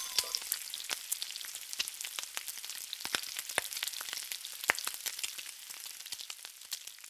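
Sparse, irregular crackling and sizzling over a faint hiss, thinning out and fading near the end.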